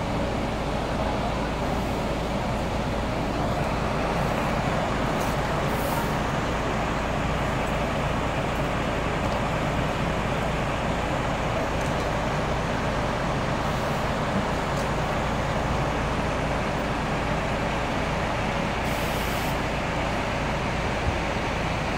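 Diesel coach engines idling and moving through a bus station, a steady low rumble. A short hiss comes near the end.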